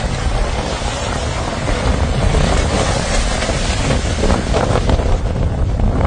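Wind buffeting the microphone over the hiss of waves breaking on the shore.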